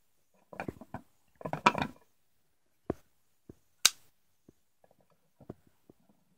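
Folding pocket knives being handled, opened and set down on a wooden cutting board: scattered clicks and light knocks of blades and handles. The sharpest click comes just under four seconds in.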